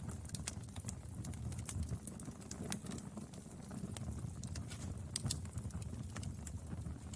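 Wood fire burning, with frequent irregular sharp crackles and pops over a low steady rumble.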